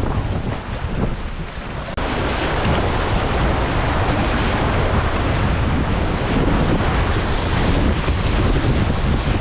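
Whitewater rushing through a shallow river rapid, with wind buffeting the microphone; the rush grows suddenly louder and fuller about two seconds in.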